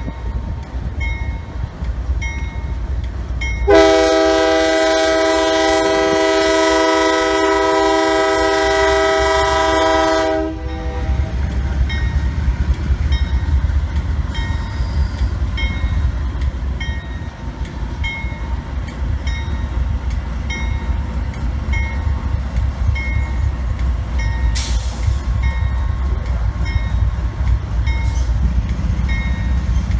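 Freight train passing behind Union Pacific and Norfolk Southern diesel locomotives. About four seconds in, its multi-note air horn sounds one long blast of about seven seconds, the loudest sound, over the low rumble of the diesel engines and rolling cars. A grade-crossing bell dings steadily and evenly.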